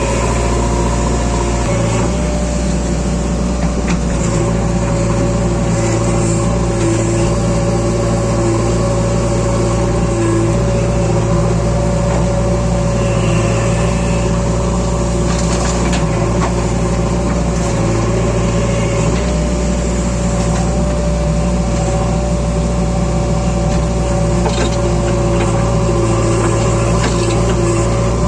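Diesel engines of a JCB 3DX backhoe loader and a Sonalika DI 47 tractor running steadily while mud is loaded, a low engine hum with a steady whine above it and occasional faint knocks.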